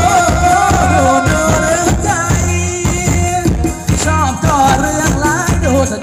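Live Thai ramwong dance music from a band: a steady drum beat with rattling, tambourine-like percussion under a sliding, ornamented melody line.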